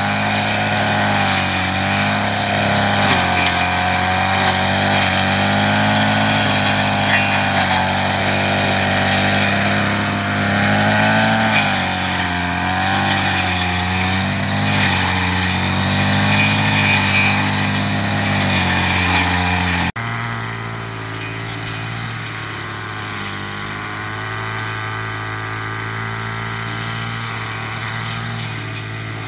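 A small engine running steadily, its pitch rising and falling a little. About two-thirds of the way through it drops suddenly to a quieter level and runs on.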